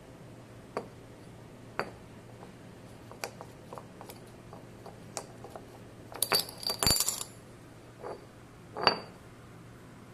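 Small metal parts and tools clinking and tapping as they are handled, with scattered single clicks, a quick flurry of ringing clinks about six to seven seconds in, and one more ringing clink near the end.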